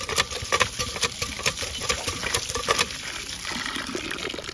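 Metal spoon clinking and scraping against a metal cooking pot in quick repeated strokes, stirring food, followed by a softer steady hiss of stirring or liquid in the pot near the end.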